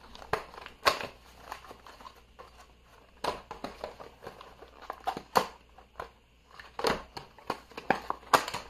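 Small medicine packets and their cardboard box being handled on a wooden table: soft crinkling and rustling, with several sharp taps as packets and boxes are picked up and set down.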